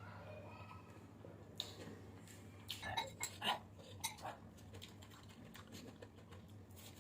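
Eating at a plate of fried chicken biryani: a run of sharp clicks and crunches, loudest about three seconds in, over a steady low hum.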